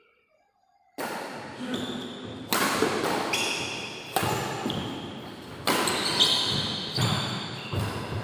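Badminton rally: rackets smacking the shuttlecock, sharp hits a second or two apart that ring in a large hall, with shoe squeaks on the court between them. The rally sound starts about a second in, after a silent gap.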